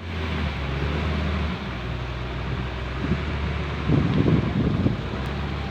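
A heavy machine's engine running steadily at a low pitch, with wind on the microphone and a louder, rougher stretch about four seconds in.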